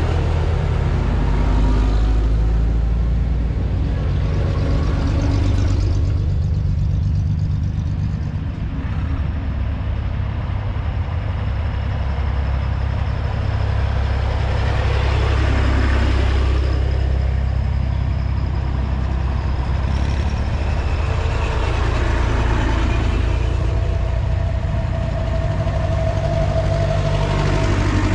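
Vintage tractors and a wartime military jeep driving past one after another, their engines running with a steady low rumble. The sound swells as vehicles pass close by, once about halfway through and again near the end.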